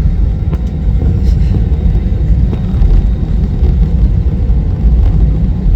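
Steady low rumble inside the cabin of an Airbus A320 taxiing on the ground, with a faint steady hum above it.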